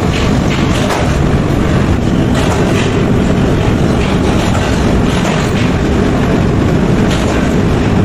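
Workshop machinery running with a steady, loud rumble, with several irregular knocks.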